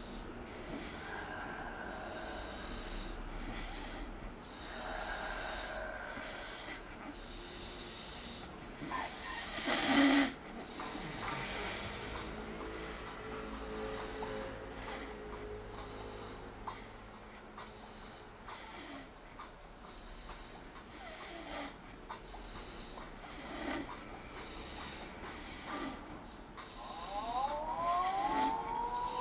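A man snoring in deep sleep, breath after breath in a steady rhythm of about one every two seconds, with one louder snore about ten seconds in.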